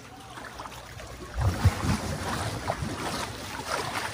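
Water splashing and sloshing against an African elephant's body as she moves in the water close by. It starts about a second and a half in, with a few low thumps at the onset.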